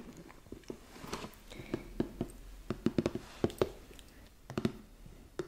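Fingernails tapping and scratching on a cardboard advent calendar box as its lid is shut and the box is handled up close: irregular sharp clicks and taps, most frequent in the middle.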